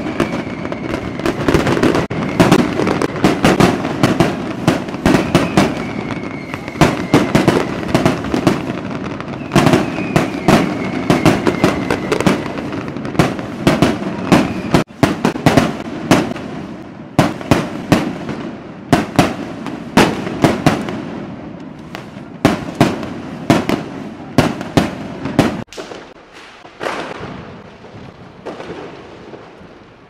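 Fireworks going off in a rapid barrage of sharp bangs over a continuous low din, thinning out to scattered bangs in the last few seconds.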